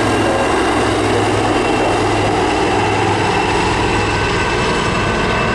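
Aircraft engines running steadily through a display flypast, with a steady low hum and a thin high whine over a wide rush of noise.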